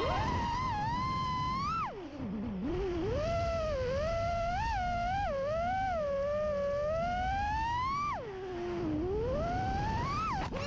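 Brushless motors of a 6S 5-inch FPV freestyle quadcopter (2306 1750kv) whining in flight. The pitch sweeps up and down with the throttle, dropping low twice, about two seconds in and again near the end, as the throttle is cut for dives, then climbing back up.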